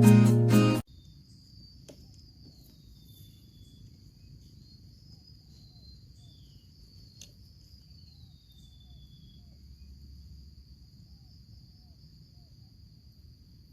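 Background music that cuts off about a second in, then a faint steady high insect trill, cricket-like, with a few soft falling bird whistles over it.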